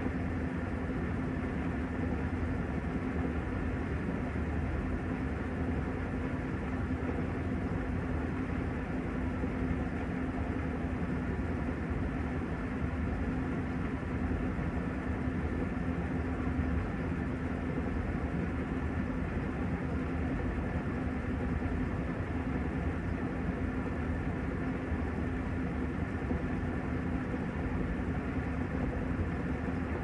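Panasonic top-loading washing machine in its spin cycle, the tub spinning at speed. A steady motor hum with a constant low tone, unchanging throughout.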